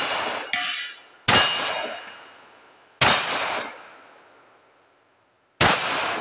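9mm Rock Island Armory M1911A1 pistol firing three single shots at steel targets, about two seconds apart. Each shot is followed by the clang and ring of steel plates being hit, with a separate clang about half a second in.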